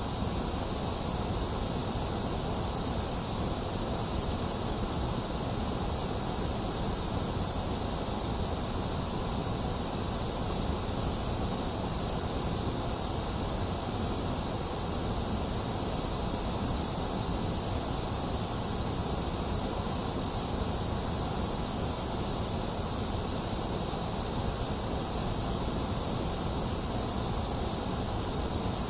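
Box fan running at a steady whoosh, mixed with continuous rain hiss and no thunder. The sound is unchanging, full in the lows and bright in the highs.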